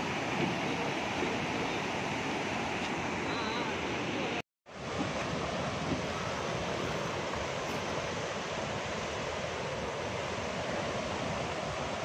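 Steady rush of river water churning through shallow white-water rapids, cut off by a brief silent dropout a little before halfway.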